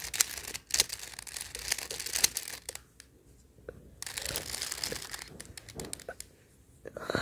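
Plastic 3x3 Rubik's cube being twisted by hand: quick runs of clicking, clacking layer turns, in two bursts with short pauses between.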